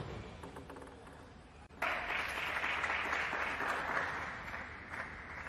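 Applause, starting abruptly about two seconds in and slowly fading.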